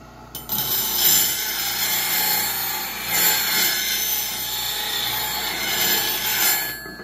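Steel bowl gouge ground against a spinning 180-grit diamond wheel on a bench grinder: a steady grinding rasp that starts about half a second in and cuts off shortly before the end, with the grinder motor humming underneath. The gouge's primary bevel is being re-ground.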